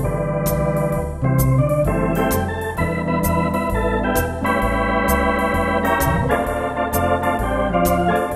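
Wersi Atlantis electronic organ played with drawbar organ voices in a swing style: sustained chords on the manuals over a stepping bass line on the pedals, with a crisp tick marking the beat.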